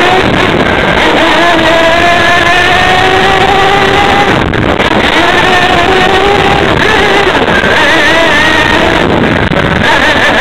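Small engine revving close up, its pitch rising and falling as the throttle changes and dropping out briefly twice, with wind rushing over the microphone.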